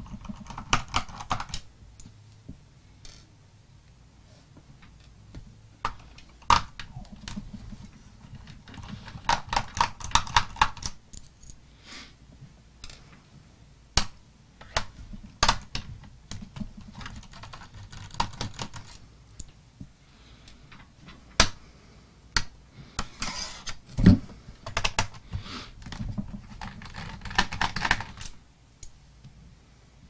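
Precision screwdriver working small screws out of the plastic bottom case of a Dell Inspiron M5010 laptop. Several bursts of rapid clicking and scratching, with single sharp clicks between them.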